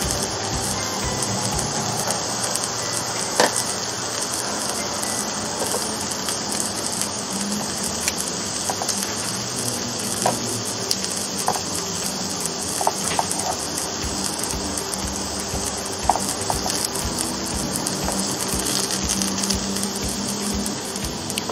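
Mushrooms and vegetable slices sizzling steadily on the plates of an open electric contact grill, with metal tongs clicking against the grill now and then as the pieces are turned.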